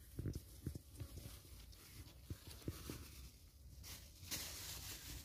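Soft footsteps of a hiker walking on a trail, irregular low thuds about two or three a second, over a faint steady hiss.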